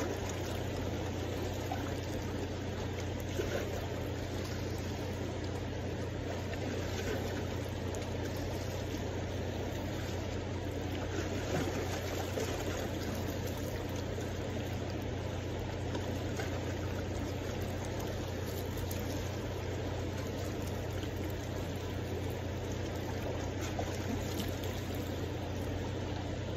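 Steady rush of a fast-flowing river, with a constant low rumble underneath.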